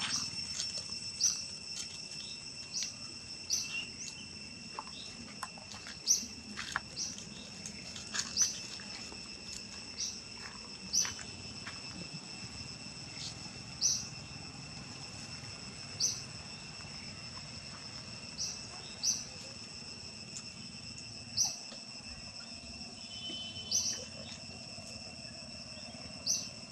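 Steady, high insect drone, with short, sharp, high chirps repeating every one to two seconds.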